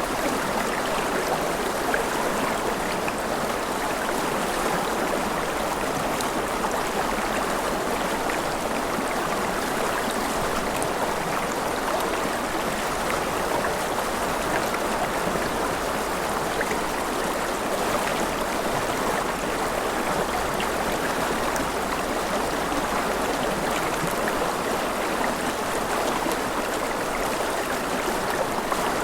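Steady rushing water, an even unbroken hiss with faint scattered ticks.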